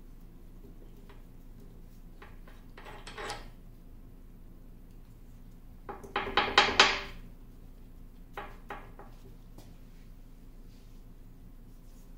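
Metal parts of a 1950 LeBlond Regal lathe rattling and clinking as the lead screw and feed rod are handled at their end bracket: a short clatter a few seconds in, a louder quick run of rattles midway, then two light knocks.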